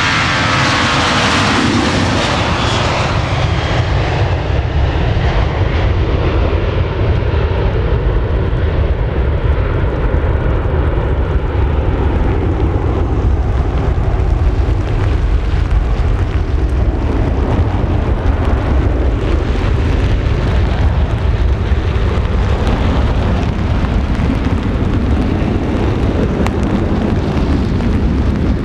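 Boeing 737-800's CFM56-7B turbofans at takeoff thrust: a high fan whine drops in pitch and fades in the first couple of seconds as the jet passes, leaving a steady low rumble as it climbs away.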